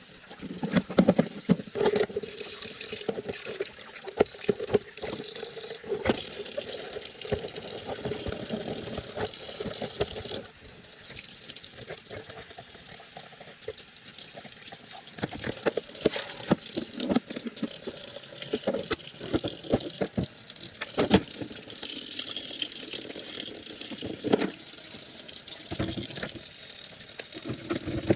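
Tap water running into a sink, with frequent short knocks and splashes as vacuum cleaner parts are rinsed under the stream. The flow eases off for a few seconds around a third of the way in, then picks up again.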